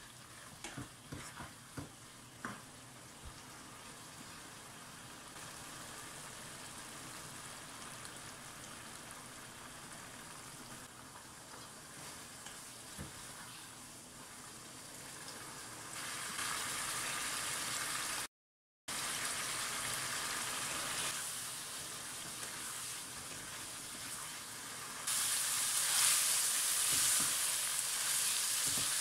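Minced meat sizzling as it is fried down in oil in a wok, with a plastic slotted spoon scraping and knocking against the pan in the first few seconds. The sizzle steps up about halfway through, breaks off for an instant, and is loudest near the end.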